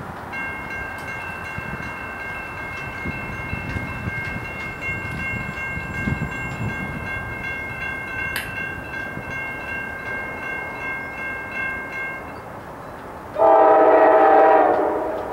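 Grade-crossing warning bell ringing steadily with a fast, even beat, then, near the end, the approaching freight locomotive's air horn sounds one loud blast of about a second and a half that fades away. A single sharp click is heard about midway.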